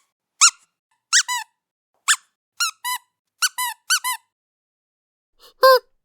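Rubber squeaky dog toy being squeezed: a string of short, high squeaks, several in quick pairs, then a lower squeak near the end.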